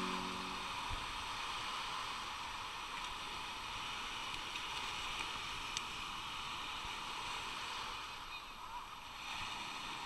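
Background music ends under a second in, leaving a steady hiss of small waves washing on a sandy beach.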